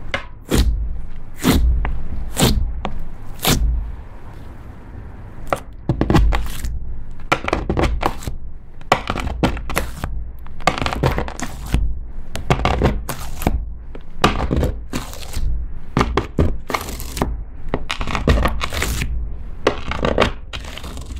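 Thick glossy slime being squeezed and pressed with the fingers, giving many sharp clicks and pops, then sliced repeatedly with a knife against a wooden board later on.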